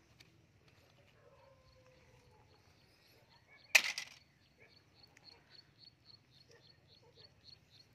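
A short, sharp clatter of hard plastic toy vehicles being handled on wooden planks about four seconds in, the loudest sound. After it, a faint high chirping repeats evenly about four times a second.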